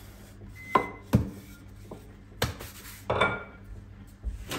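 Kitchen clatter: about five separate knocks and clinks as a rolling pin is put down on a stone worktop and dishes are handled.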